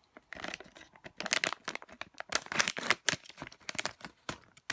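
A plastic toy package crinkling and tearing as it is opened by hand, in a quick, irregular run of crackles.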